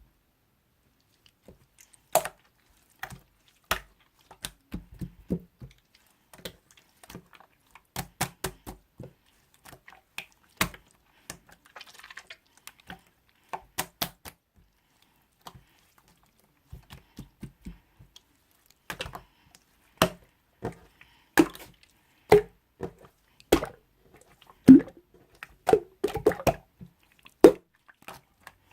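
Irregular light taps and clicks, single or in quick little clusters, with short pauses between; the loudest comes a few seconds before the end.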